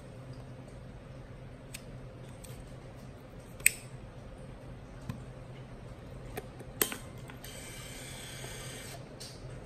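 Small clicks and taps from handling film and a 35 mm film camera, with a sharp snap about seven seconds in as the camera back is shut, then a steady rasping noise for about a second and a half.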